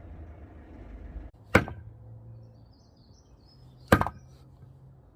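Axe chopping old pitch pine: two sharp strikes, about two seconds apart, the blade biting into very hard, resinous wood.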